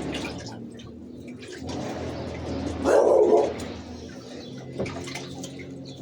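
Domestic pigeons cooing, with one loud coo about three seconds in, along with light rustling and clicks from birds moving about.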